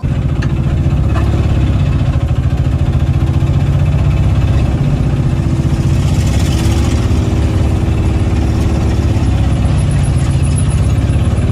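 Engine of a three-wheeler cargo tempo running steadily under way, heard loud from inside its open cab, with an even rapid chugging pulse.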